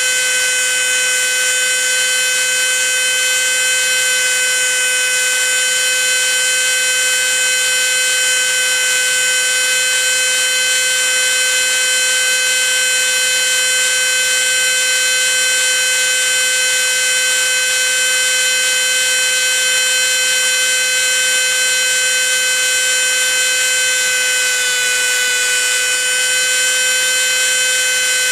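High-speed grinder with a small abrasive wheel running with a loud, steady high whine while grinding the steel pivot of a clock arbor round and centred. Its pitch sags slightly about 24 seconds in as the wheel bites.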